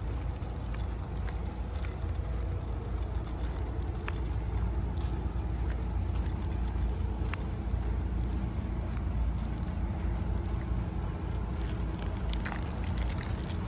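Wind buffeting the microphone as a steady low rumble, with a few faint clicks scattered through.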